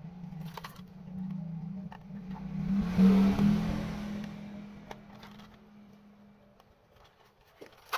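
A motor vehicle passing by: a steady engine hum and tyre noise swell up, are loudest about three seconds in, then fade away.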